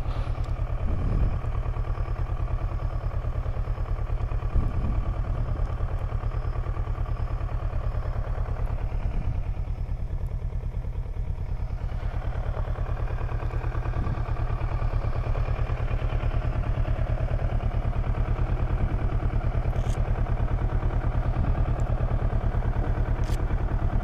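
Kawasaki Versys 650's parallel-twin engine idling steadily.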